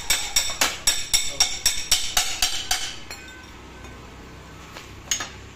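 Percussive intro music: about a dozen bright, ringing clinks, roughly four a second, over the first three seconds. Then a low steady hiss with one more hit near the end.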